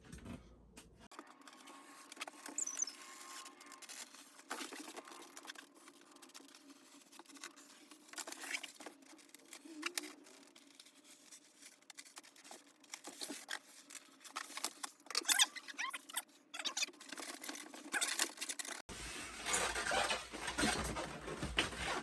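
Cardboard packaging being handled and its packing tape worked open: scattered scratching, rustling and small clicks, with a few sharper snaps.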